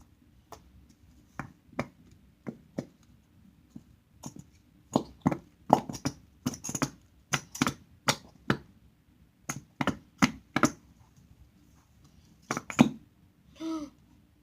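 Irregular sharp clicks and knocks, more than a dozen, spaced unevenly and loudest near the end. A short voiced sound near the end.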